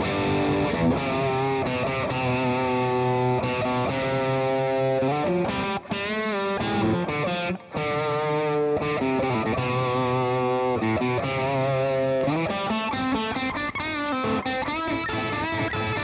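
Squier Hello Kitty Stratocaster electric guitar played through distortion: a lead line of sustained notes with string bends and vibrato, broken by two brief gaps about six and eight seconds in.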